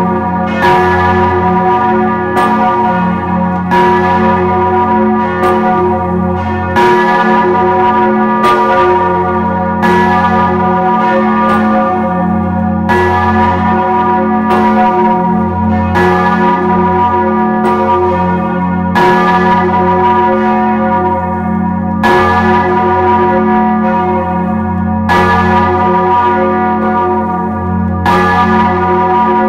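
Church bells ringing in full swing, heard close up in the bell chamber beside the large Stephanus bell. Clapper strikes overlap, the strongest about every three seconds, each ringing on into a steady deep hum. The sound is somewhat muffled because it was recorded with sound damping.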